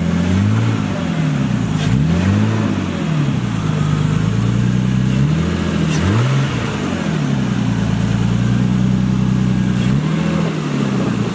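Nissan Skyline's turbocharged engine running and being revved several times, its pitch rising and falling between idle and higher revs.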